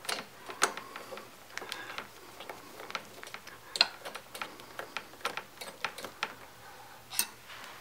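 Irregular small metal clicks and taps of hands and a screw at a Kohler engine's carburetor as a T20 Torx screw is fitted to the auto choke mounting. The strongest clicks come right at the start and about seven seconds in.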